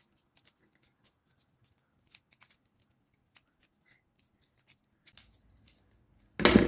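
Faint, irregular plastic clicks of a 1x3x3 fidget cube's layers being turned during a solve, ending with one loud sharp knock near the end.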